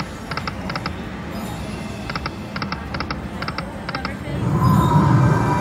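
Aristocrat Timber Wolf slot machine in free games: short paired electronic ticks as each reel stops in turn, a run of five for one spin and another five for the next. About four and a half seconds in, a louder win sound with a low drone starts as a line win pays.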